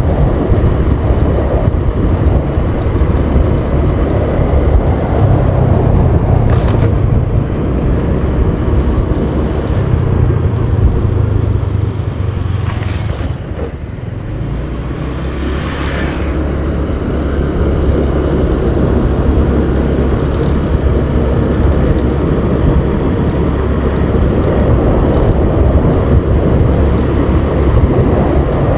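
Wind rushing over the microphone and a motorbike's engine and tyres while riding along at speed. The noise dips for a moment about halfway through, then builds again.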